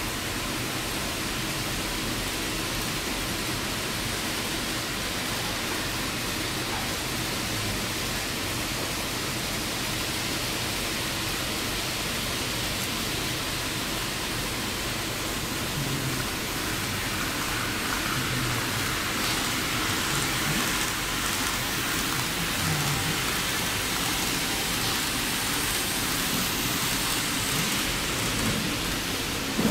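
Several model trains running around the layout's tracks: a steady rolling hiss of small wheels and motors, a little louder in the second half.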